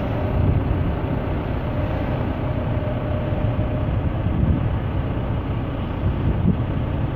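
Engine idling steadily, a low even rumble.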